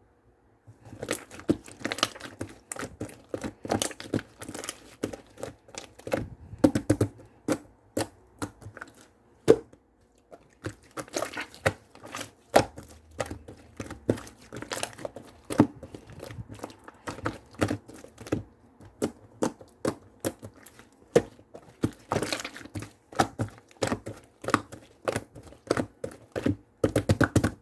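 Light pink slime being squished and pressed by hand, giving a run of sticky clicking and popping sounds that starts about a second in.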